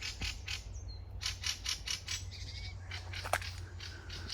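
Birds squawking in a rapid series of harsh chattering notes, with a faint higher call or two and one sharp click about three seconds in.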